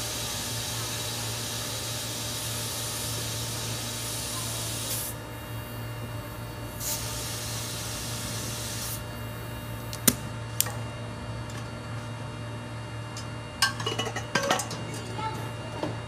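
Compressed air hissing into a truck tyre through an air chuck clamped on the valve stem. The hiss is strong for about five seconds, then drops away apart from short spells. A few sharp metallic clicks and taps come near the end as the air hose is unhooked, over a steady low hum.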